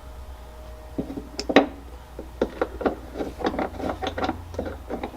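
Irregular light clicks and knocks of a bolt and hand tool being worked at a seatbelt shoulder-anchor hole, with the bolt not threading in; the hole looks to have a different thread pitch from the bolt. The knocks come thicker from about halfway through.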